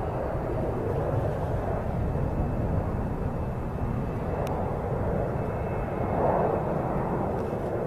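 Distant jet rumble of a B-1B Lancer's four General Electric F101 afterburning turbofans as the bomber flies across at a distance, a steady low rumble that swells slightly about six seconds in.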